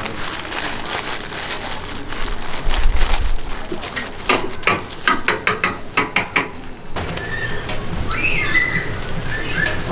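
Plastic bag crinkling in quick crackles as a plastic-gloved hand digs sticky hotteok dough out of it, densest about four to seven seconds in. A faint high, wavering sound comes in near the end.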